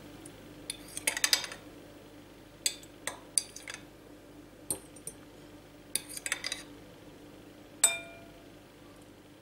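A metal fork taps and scrapes in short, scattered clinks as tofu cubes are lifted off a plate with it. Near the end one sharper clink rings briefly as the fork touches a glass bowl.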